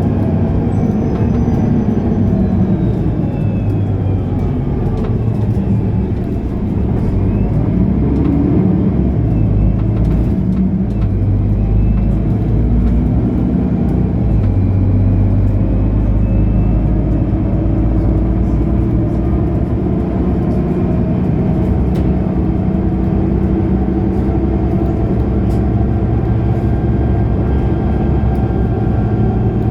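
Mercedes-Benz O530 Citaro Facelift Ü bus's diesel engine running while the bus drives. The engine pitch glides in the first few seconds, then settles to a steadier hum.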